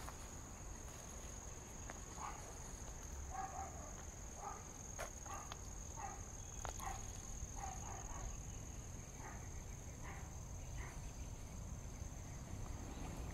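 Crickets trilling steadily as one high, unbroken tone, with faint short sounds every half second or so underneath.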